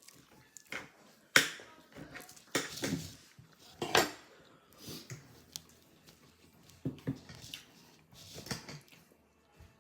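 Scattered table sounds of people eating: sharp clicks and short scrapes of utensils and dishes, the two loudest clicks about a second and a half in and about four seconds in.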